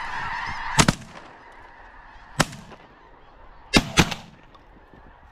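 About five shotgun blasts in three bunches (two quick shots, a single, then two more) fired at passing snow geese, over the constant honking of a large snow goose flock, which thins out after the first shots.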